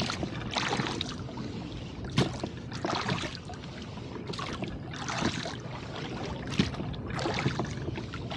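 Rowboat under way through a steep chop: water splashing and slapping around the hull in irregular bursts about once a second, with a few sharper knocks.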